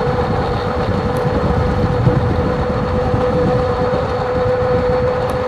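Eahora Urban e-bike's electric motor whining at one steady pitch while pulling up a gentle grade at speed, over wind rumbling on the microphone and tyre noise.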